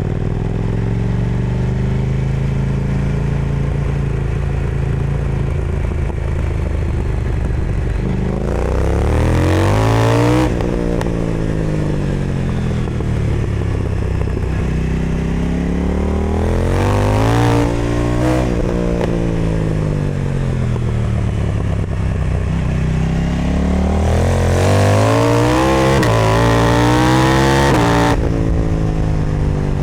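KTM 990 Duke motorcycle engine through an Austin Racing exhaust, running steadily at first and then revving up hard three times, about 8, 15 and 23 seconds in, each climb ending in a sudden drop in revs.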